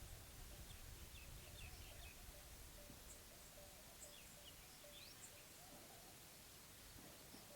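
Quiet mountain ambience: faint, scattered bird chirps over a low steady hiss.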